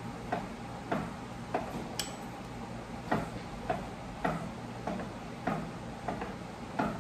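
A regular series of light mechanical clicks, a little under two a second, with one sharper, higher tick about two seconds in.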